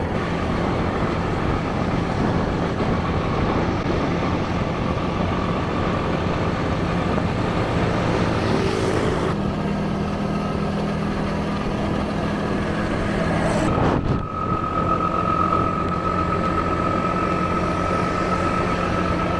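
Motorbike engine running at a steady road speed under rushing wind and road noise. The sound shifts abruptly twice, and a steady high whine runs through the last third.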